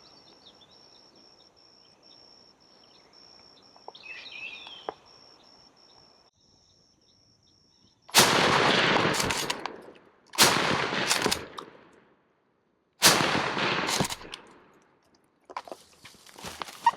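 Three shotgun shots about two to three seconds apart, each loud and sudden with a long trailing echo, fired at a turkey gobbler. Before them, faint outdoor quiet with a few bird chirps.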